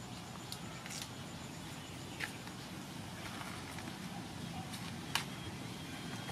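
Husk sheaths being torn by hand off a fresh bamboo shoot: a few short snaps and tearing sounds, the sharpest about five seconds in, over a steady low background hum.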